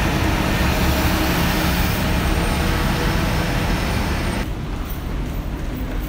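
City road traffic: the engines and tyres of passing vehicles as a dense, steady wash of noise. About four and a half seconds in the hiss drops away and a quieter, duller rumble remains.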